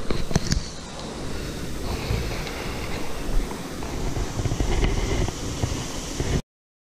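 Wind buffeting a body-worn camera's microphone over a steady rush of water, with a few handling knocks near the start. The sound cuts off abruptly about six seconds in.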